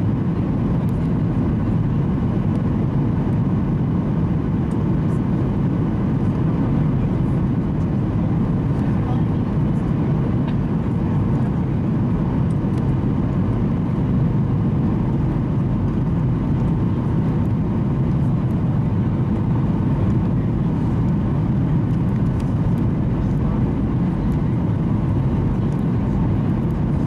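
Steady cabin noise of a Boeing 737-800 on final approach, heard from a window seat by the wing: a deep, even rumble of engines and airflow with flaps extended, with a faint steady whine above it.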